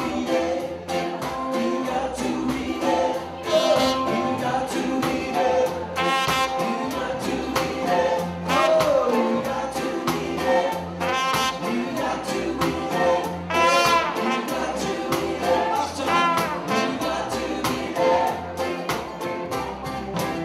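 Live band playing, with a man singing lead with a wavering vibrato over guitar and a steady beat.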